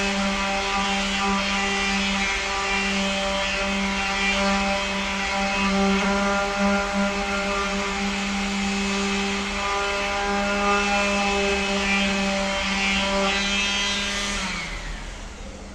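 Electric sander running steadily against a refrigerator's metal body, a constant motor whine over a gritty hiss. Near the end it is switched off, and its pitch falls as it winds down.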